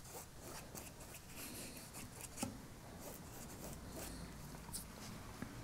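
Faint, irregular scratching of a paintbrush being stroked over canvas, with a small tap a little before halfway.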